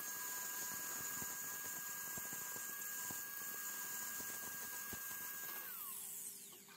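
Cordless angle grinder running at a steady high whine while its cut-off disc cuts through the thin steel wires of a fan guard, with small ticks as the wires are cut. Near the end it is switched off and the whine falls away as the disc spins down.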